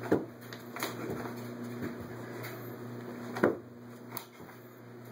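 A person landing tuck jumps on a carpeted floor: two heavy thumps about three seconds apart, with lighter knocks and shuffles between them, over a steady low hum.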